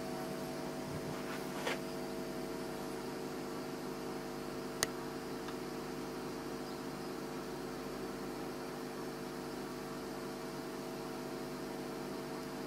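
Acoustic Research AR-10π loudspeaker giving off its unwanted 'wu' noise: a steady hum of several tones over an even hiss. A single sharp click about five seconds in.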